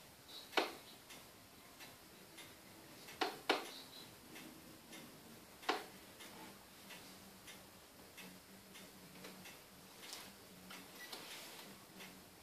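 Faint, regular ticking, with a few sharp louder clicks on top: one about half a second in, two close together about three seconds in, one near six seconds and one near ten.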